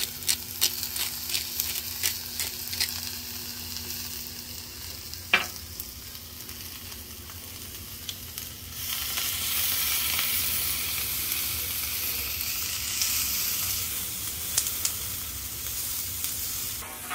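Sliced bell peppers and onions sizzling in olive oil on a flat-top griddle. A pepper grinder clicks evenly over the first few seconds. About nine seconds in the sizzle gets louder, and a spatula turns the vegetables.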